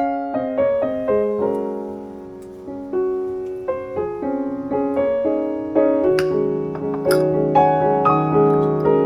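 Background piano music: a gentle melody of single notes over soft chords, with a faint clink or two partway through.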